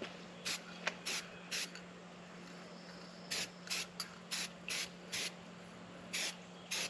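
Aerosol spray paint can sprayed in short bursts, about ten quick hisses, with a pause of a second or so near the middle.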